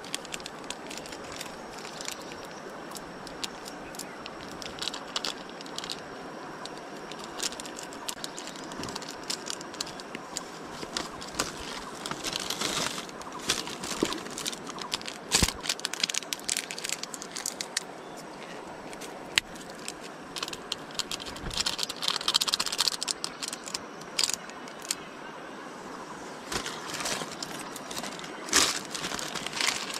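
Plastic instant-noodle and seasoning packets crinkling and crackling in the hands, in several louder bursts with scattered clicks between, over a steady rushing noise.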